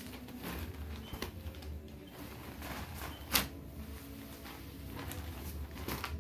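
Cotton saree being unfolded and spread out by hand: fabric rustling with a few sharp handling clicks, the loudest about three and a half seconds in, over a low steady hum.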